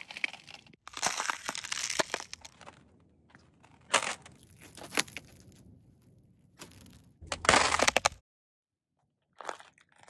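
Thin ice cracking and crunching under boot steps: a crunching stretch, two sharp single cracks, then a loud breaking crunch that cuts off suddenly.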